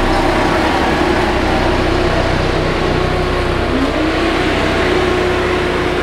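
Sakai SV544T padfoot vibratory soil compactor running steadily as its padfoot drum rolls over gravel, its diesel engine giving a constant hum, with a brief rising whine a little past the middle.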